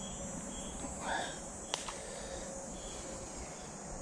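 Steady, high-pitched insect chorus in creekside woods. A single sharp click comes a little under two seconds in.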